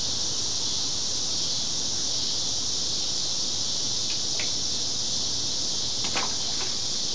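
Steady, high-pitched drone of an insect chorus, with a few faint brief chirps about four and six seconds in.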